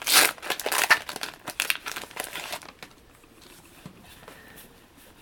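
Foil wrapper of a Yu-Gi-Oh booster pack crinkling as it is handled and torn open. It is loudest at the start and fades to faint rustles about halfway through.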